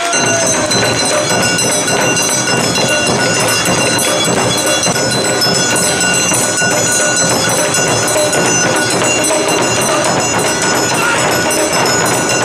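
Awa odori hayashi band playing: taiko drums, including a large barrel drum and smaller shime-daiko, beat a fast, steady rhythm, with sustained high tones held over the drumming.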